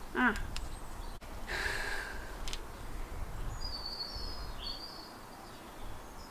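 A few faint clicks from the push button of a handlebar LED bike light as it is switched into its bright beam, over steady outdoor background noise. A brief rush of noise comes about a second and a half in, and a few high bird chirps about four seconds in.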